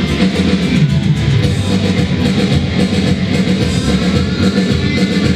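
Rock music with loud guitar and a drum kit, playing steadily.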